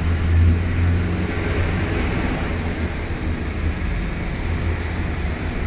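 Steady low rumbling background noise with a faint hiss, like distant traffic or a running machine.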